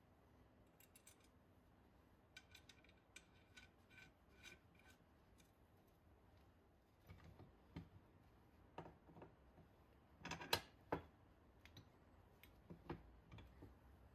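Light metallic clicks and knocks of steel trolley-jack parts being handled and fitted by hand during reassembly. A quick run of small ticks with a faint ring comes first, then scattered louder knocks, the loudest about ten and a half seconds in.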